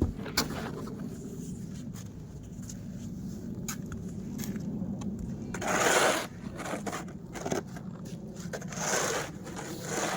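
Snow being scraped, two long scraping strokes about six and nine seconds in, over a steady low rumble, with a few sharp clicks near the start.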